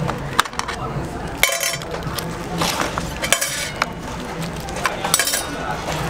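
Metal tongs clinking and scraping against an aluminium tray as whole roast chickens are shifted and turned, in a row of sharp clicks and a few short scrapes. A low steady hum runs underneath.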